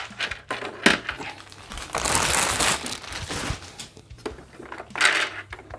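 Clear plastic bag crinkling and rustling in several bursts as a toy gauntlet is worked out of it, with a sharp knock a little under a second in.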